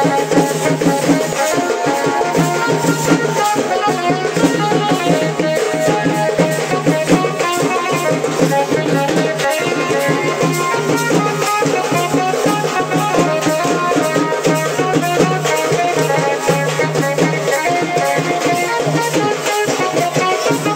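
A band playing a melody over continuous drumming and percussion.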